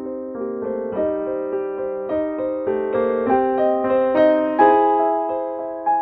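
Background piano music: a melody of single notes and chords struck one after another, each fading away, growing slowly louder.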